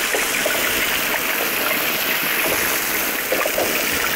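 Marinated chicken breast fillets searing in a hot frying pan: a steady sizzle with fine crackles and spits.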